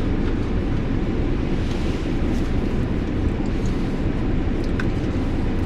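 Wind buffeting the microphone: a steady low rumble with no speech over it.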